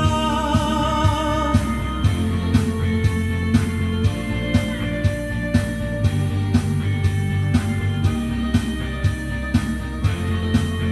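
Karaoke backing track of an indie rock song playing an instrumental break: guitars over drums keeping a steady beat of about two hits a second. A sung note held with vibrato trails off about a second and a half in.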